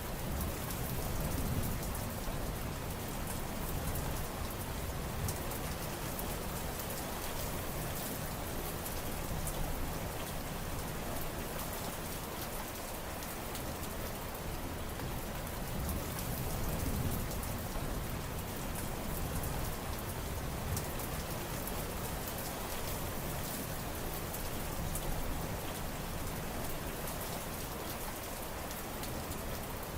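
Steady heavy rain falling on surfaces, a dense patter of drops, with a low rumble that swells and fades every few seconds.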